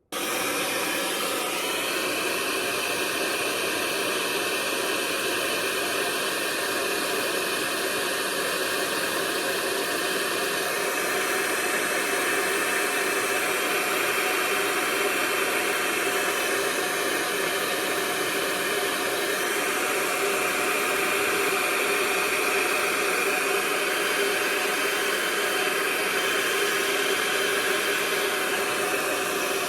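Handheld hair dryer blowing steadily at a strong setting, its tone shifting slightly about a third of the way in and again past halfway. It starts and cuts off abruptly.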